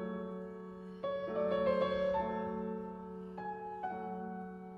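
Slow solo piano music: single notes and soft chords struck every half second to a second and left to ring.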